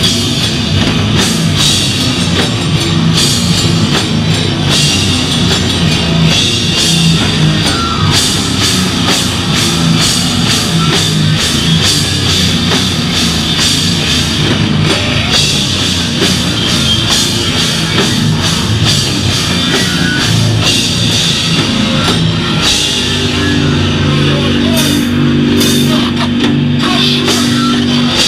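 Live beatdown hardcore band playing loud: distorted guitar and bass over a drum kit with constant cymbal hits. In the last few seconds, low held chords ring out under the drums.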